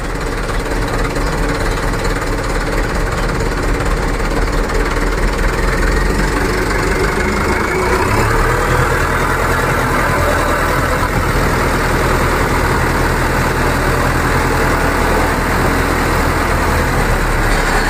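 Mitsubishi Canter truck's diesel engine running steadily while driving the hydraulic hoist that tips the dump body up; its low engine note grows stronger about halfway through.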